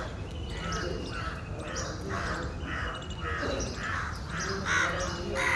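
Crows cawing repeatedly, a quick run of harsh caws at about two a second, over a steady low background rumble.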